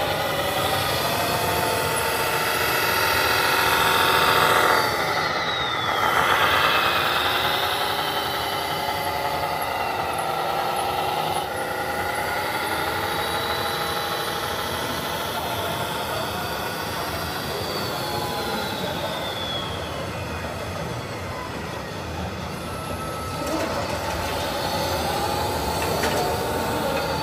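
Whining motors of radio-controlled model vehicles, several tones rising and falling in pitch together, loudest about four to seven seconds in.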